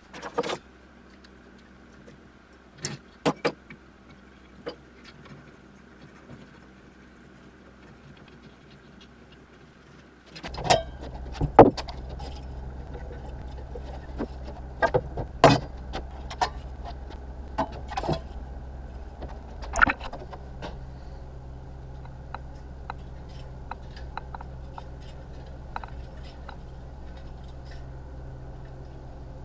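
Loose scrap-metal parts clinking and clanking. About a third of the way in a steady low motor hum starts and runs on under repeated irregular metallic clanks and jangles as the welded scrap-metal windmill turns.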